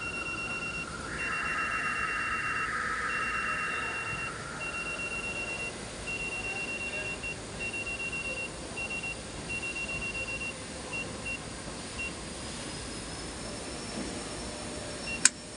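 Automotive AC recovery and recharge machine beeping in a steady series of high beeps about a second long while it charges refrigerant by weight. The beeps turn shorter and irregular and stop about three-quarters of the way through. A hissing whine sounds alongside the beeps over the first few seconds, and a sharp click comes near the end.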